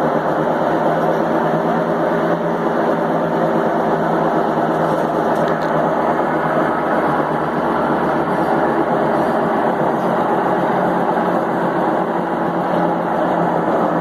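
Consul Maré 7.5 kg washing machine in its spin cycle, running with a loud, steady mechanical noise at a constant speed. The spin noise is the sign of a faulty part that is due to be replaced.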